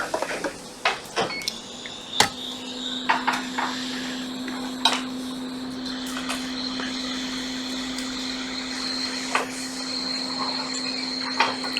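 A few sharp clicks and taps, then about two seconds in a hot-air rework station's blower starts and runs steadily with a low hum, a high whine and airy hiss, heating the board to desolder a chip.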